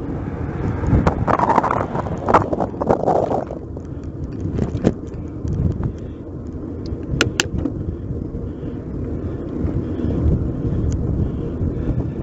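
Wind rushing over a bike-mounted action camera's microphone while riding a bicycle, a steady low rumble with scattered rattles and clicks from the bike and mount over the road surface. Two sharp clicks come about seven seconds in.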